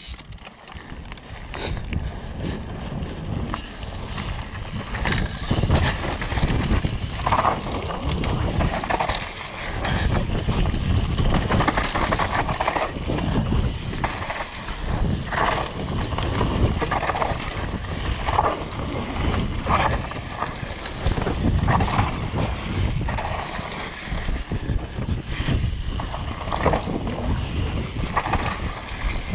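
Downhill mountain bike run: wind buffeting the microphone over the tyres and frame, with frequent irregular knocks and rattles from the rough trail. The noise builds up over the first couple of seconds as the bike gets going.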